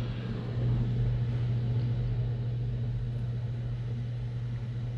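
A steady low hum with faint background noise, running evenly throughout.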